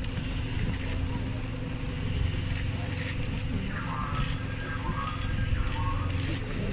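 Steady low hum of an idling fire engine, with faint voices and short clicks and scuffs as people file down stone steps.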